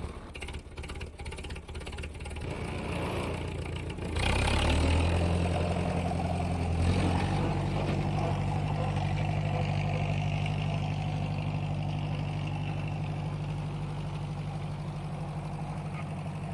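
An engine running steadily at idle. It grows louder about four seconds in and then holds an even hum.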